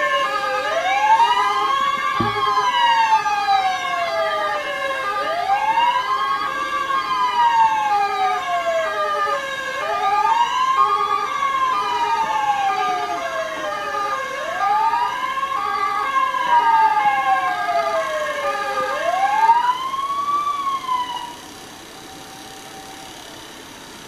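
Fire engine siren wailing in a slow cycle that rises quickly and falls slowly, about every four and a half seconds, with a steady high tone and a quick on-off pulsing tone behind it. The siren cuts off about 21 seconds in, leaving a quieter steady background.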